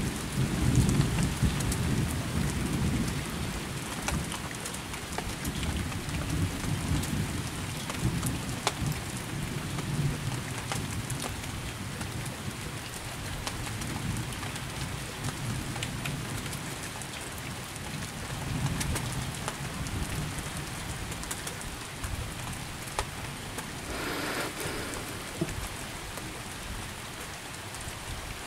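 Steady rain with drops ticking close by, under low rolling thunder that is loudest in the first few seconds and swells again several times. A brief rushing noise about four seconds before the end.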